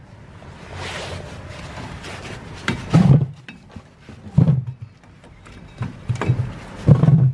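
Close handling noise while a brake caliper bracket is fitted onto a truck's front wheel hub: a rustle of jacket fabric brushing right at the microphone, then several low thumps as the heavy bracket is worked into place.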